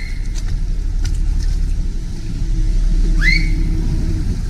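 Motorboat engine running with a steady low rumble as the launch passes close alongside the gondola. A short high note rises and then holds about three seconds in.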